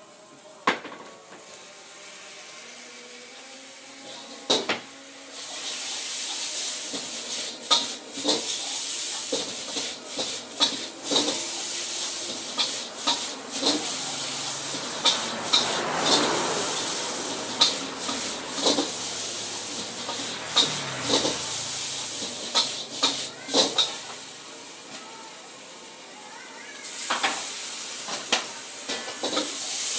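Mie goreng frying in a hot pan: a loud steady sizzle that starts about five seconds in, eases off briefly near the end and then comes back. A metal utensil knocks and scrapes against the pan over and over as the noodles are stirred and tossed.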